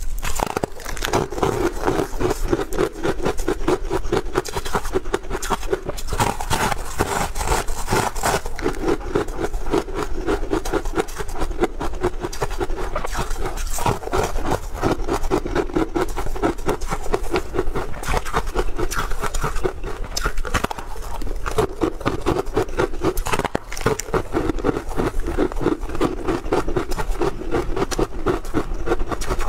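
Close-miked biting and chewing of a brittle bitter-buckwheat crisp cake: a dense, unbroken run of crunching and crackling.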